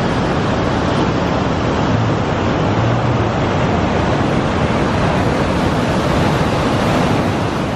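Loud, steady rush of the Niagara River's water pouring over the crest of the falls.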